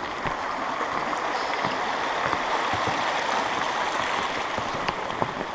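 Mountain creek running over rocks: a steady rush of water that grows a little louder in the middle.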